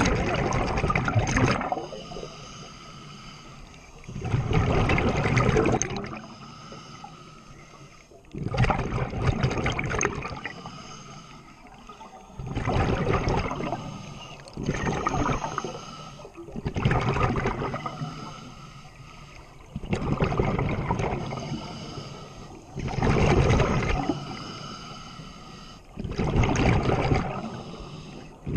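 Scuba diver breathing underwater through a regulator: loud bursts of exhaled bubbles about every three to four seconds, each lasting a second or two, with quieter stretches between breaths.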